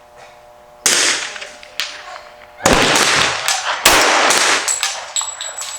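Pistol shots from a World War II Ithaca 1911 in .45 ACP: three loud shots, each ringing on, with fainter sharp cracks between and after them.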